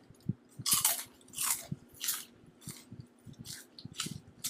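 A person chewing crunchy food with their mouth making loud crunches, about one every half-second to second.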